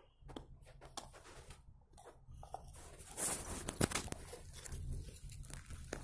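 Dog gnawing a bone: scattered sharp crunching clicks, then louder crunching and rustling from about three seconds in, with one hard crack near four seconds.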